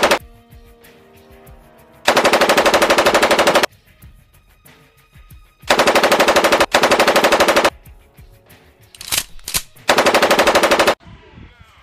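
Dubbed-in machine-gun sound effect: four bursts of rapid automatic fire, each about a second long. The first comes about two seconds in, two follow back to back near the middle, and the last comes near the end.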